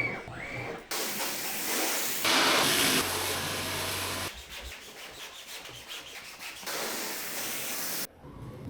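Carpet-cleaning noise: a wet rug being scrubbed and rubbed, in several short clips spliced together so that the sound changes abruptly every second or two. A low machine hum joins in for about a second near the middle.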